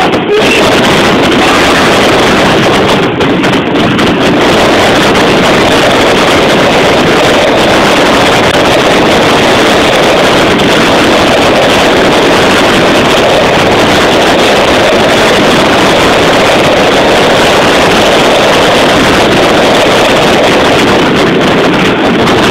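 Fireworks barrage: shells bursting in such rapid succession that the bangs merge into one continuous, very loud roar, overloading the camera microphone into a steady distorted rumble.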